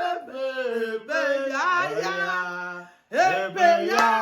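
A man and a woman singing together in long held, sliding notes, with hand claps starting near the end.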